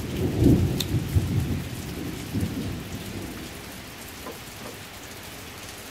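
Steady rain falling, with a low rumble under it that fades away over the first three seconds.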